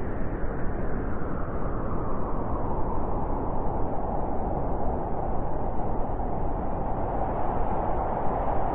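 Cold winter wind blowing as a continuous rushing noise with small quick swells, its pitch sitting a little higher in the second half.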